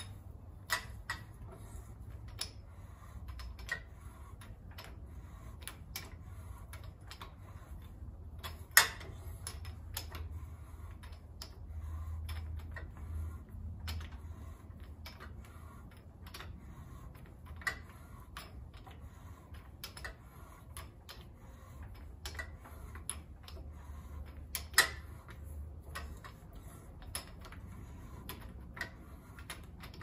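Irregular sharp clicks and ticks as a 7/16 fine-thread tap is turned by hand through a bench tapping guide into a cast hub, cutting dry. A few clicks stand out louder, about 9 and 25 seconds in, over a low steady hum.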